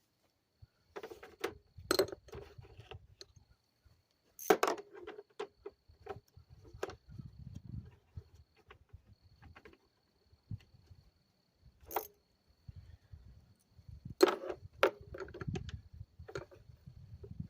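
Metal clinking and rattling as a metal part and its bolts are handled and fitted on top of a small engine's flywheel, with a few sharp metal-on-metal knocks, the loudest about four and a half seconds in and again near the end.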